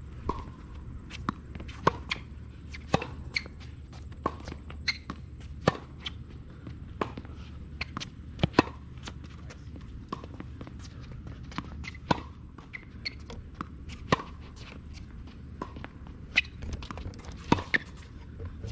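Tennis ball being hit back and forth on a hard court: sharp pops of the racket strings striking the ball every few seconds, with smaller clicks of ball bounces and shoe scuffs between them, over a steady low background rumble.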